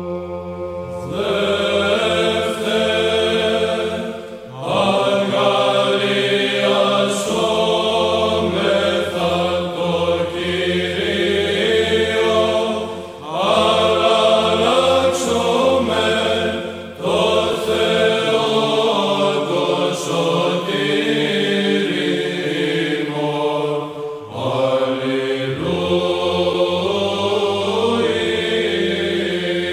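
Chanted sacred vocal music, in the manner of Orthodox liturgical chant: voices singing long held phrases, with short breaks between the phrases.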